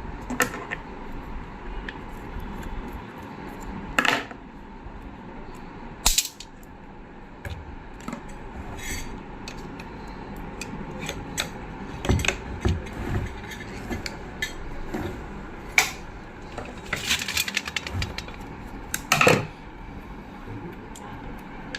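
Hand tools and metal parts of a zig-zag sewing machine clicking and clinking as it is taken apart for a chain-belt replacement. The knocks come irregularly, with a few louder ones spread through.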